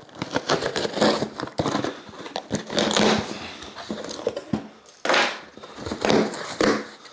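Packaging being torn open and handled: crinkling, rustling and tearing in irregular bursts, loudest about five seconds in.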